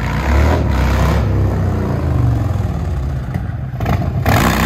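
2021 Harley-Davidson Fat Boy 114's Milwaukee-Eight V-twin running through a Big Radius exhaust, a loud, deep rumble rising and falling with the throttle as the bike rides up. It grows fuller and brighter near the end as it comes close.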